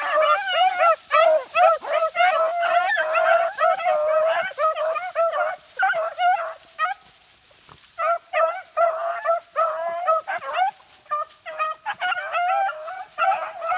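Beagles baying in rapid, repeated yelps as they run the track of a freshly jumped rabbit; the calls stop for about a second about seven seconds in, then pick up again.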